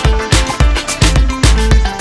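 Background music with a steady, fast beat and heavy bass.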